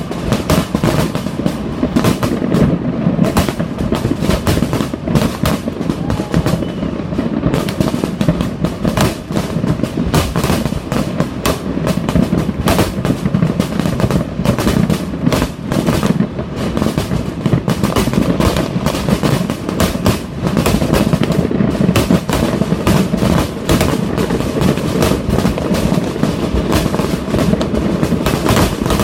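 A fireworks display going off in a rapid, unbroken barrage of bangs and crackles, with music playing underneath.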